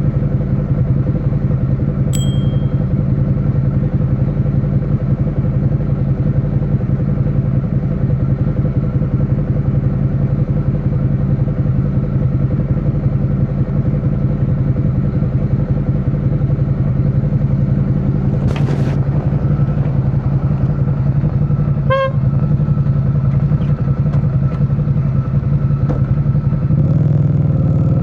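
Suzuki SV650's 645 cc V-twin engine running at steady revs, its exhaust note even and pulsing, with the pitch shifting about a second before the end. A short, high beep about two seconds in, and a couple of brief sharp sounds later on.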